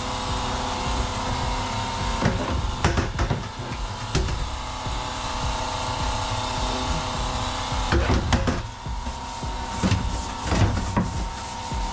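A steady machine hum with a scatter of sharp knocks and bangs, clustered about three seconds in and again around eight and eleven seconds in.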